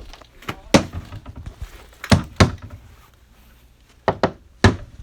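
Heavy banging thuds, about seven of them in uneven groups of one to three, over a low steady hum.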